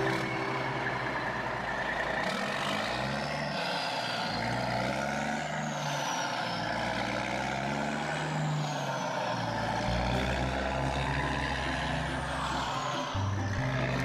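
Truck engine sound effect for an animated cement mixer truck, running steadily, its pitch rising and falling in slow swells every few seconds.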